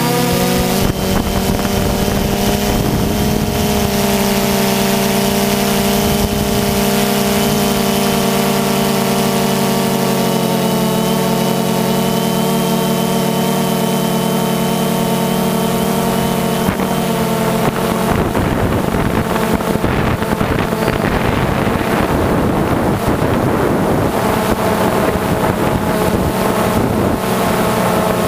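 DJI quadcopter's motors and propellers whining steadily as picked up by its onboard camera. About two-thirds of the way through, the whine weakens and rushing wind noise on the microphone takes over.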